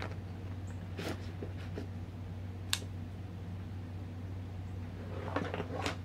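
Handling noise as a folding pocket knife is taken out of a nylon bag's side pocket: faint rustles and one sharp click a little under three seconds in, over a steady low hum.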